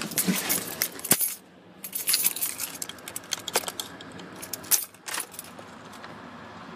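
A ring of keys jingling, clicking and scraping as the ignition key is handled and pushed into the steering-column ignition of a Ford truck. There are many short clicks and jingles over the first five seconds, then it goes quieter near the end.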